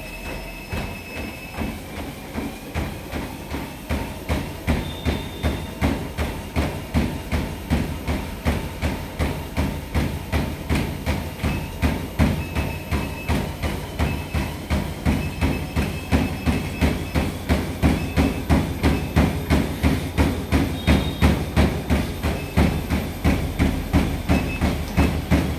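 Footfalls on a running Agaro Supreme motorised treadmill belt as the speed is stepped up from a walk to a jog: a steady beat of thuds that grows louder and quicker. Short beeps from the console sound several times as the speed buttons are pressed.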